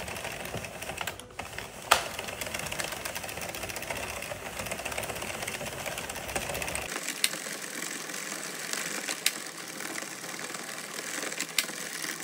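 Plastic circular knitting machine being hand-cranked, its needles clattering steadily as they knit plain rows, with a few sharper clicks every couple of seconds.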